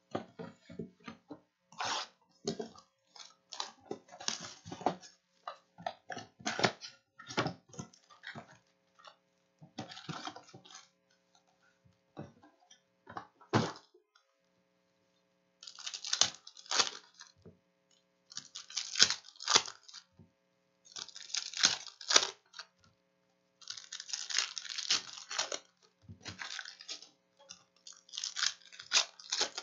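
Panini Select basketball card box and foil card packs being handled and opened by hand. First light taps and clicks of cardboard and packs, then, from about halfway, repeated bursts of crinkling and tearing as the foil pack wrappers are ripped open.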